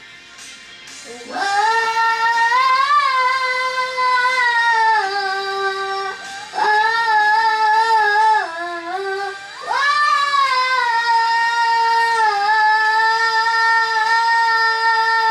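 A woman singing long held notes, one voice, starting about a second in, with the pitch dipping briefly around the middle.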